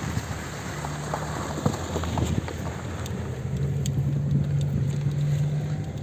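Car engine running steadily, with road and tyre noise inside the cabin while driving, and a few small ticks and knocks.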